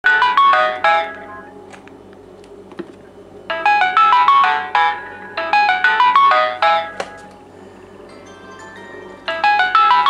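Samsung Galaxy S i9003 alarm ringing: a melodic alarm tone played in short phrases of quick falling notes, repeating with brief pauses between groups.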